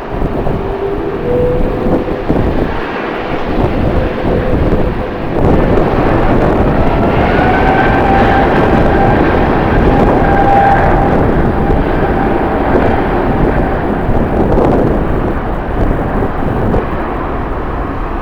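Jet airliner's engines running close by, a loud steady rush with a whine that rises in pitch, once early and again about seven seconds in.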